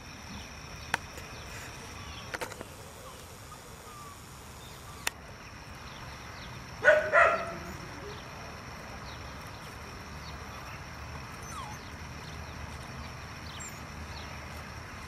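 Dachshund puppy giving a short double yip about seven seconds in, over a low steady background with a few sharp clicks.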